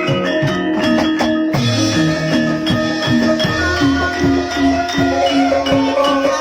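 Banyumasan-style Javanese gamelan music: struck metal keyed instruments sound interlocking notes at a steady pulse over deep gong-like tones. About a second and a half in the texture fills out, and a wavering sustained melody line joins a couple of seconds later.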